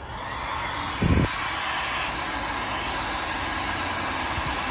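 Electric heat gun running, a steady rush of hot air blown onto a laptop MXM graphics card's GPU chip to reflow its solder. A short low thump about a second in.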